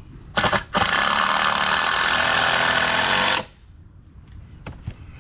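Power drill driving a screw into a wooden table: a short burst of the motor, then a steady run of about two and a half seconds that stops abruptly.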